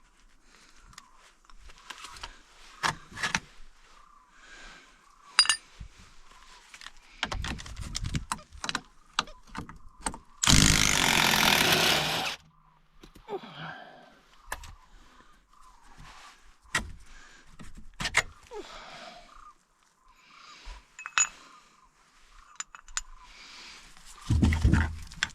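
Tools and metal parts clinking and knocking in scattered hits during hands-on disassembly work. About ten seconds in there is a loud rushing hiss lasting about two seconds.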